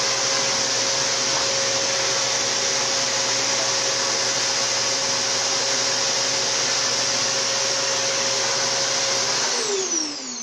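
Corded vacuum cleaner running steadily, then switched off near the end, its motor whine falling as it spins down.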